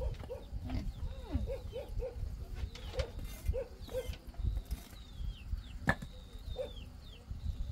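Large knife chopping leafy greens on a tarp laid over dirt: a run of dull, irregular thuds with an occasional sharper knock. Short repeated animal calls and high bird chirps sound over it.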